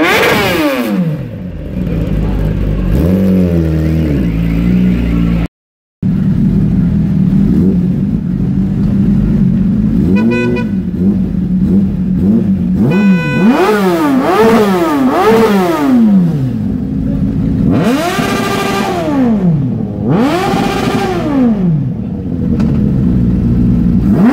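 Superbike engines idling with a steady burble and revved hard in throttle blips. There is a quick run of three rises and falls in the middle, then two longer revs near the end.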